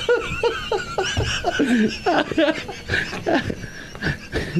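A man laughing in short, repeated bursts.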